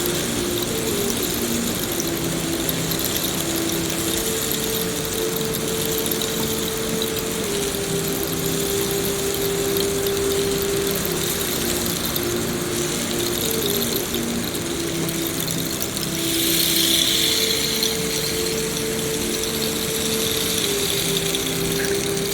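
Steady rain hiss, swelling a little louder about two-thirds of the way through. Underneath are low held tones that step to a new pitch every few seconds, like a slow ambient drone.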